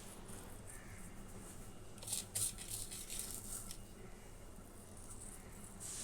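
Dry seasoning shaken from a small container over food: a short run of quick rattling shakes about two seconds in, lasting under two seconds, over faint room tone.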